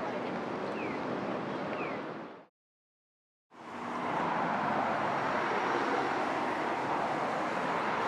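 Steady hiss of rain outdoors, with two short falling chirps in the first couple of seconds. The sound fades out about two and a half seconds in, drops to silence for a second, then a steady hiss of rain fades back in.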